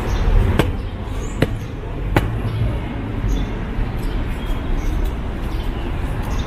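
Three sharp footsteps on a hard walkway, spaced just under a second apart in the first couple of seconds, over a steady low background rumble.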